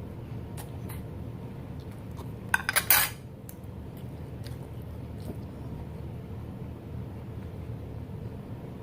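Eating utensils clinking against a plate: a few light taps, then a quick cluster of sharper clinks about two and a half seconds in, with more light taps after, over a steady low background hum.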